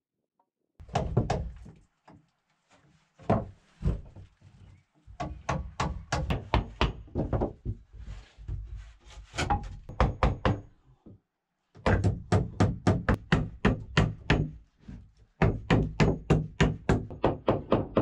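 A hammer knocking a hatchet down into a block of wood to split off small pieces. The blows come in quick runs of about four a second, with short pauses between runs.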